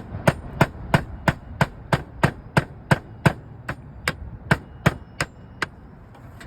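A hammer tapping a slate repair hook into the roof deck: an even run of sharp, ringing taps, about three a second, that stops about a second before the end.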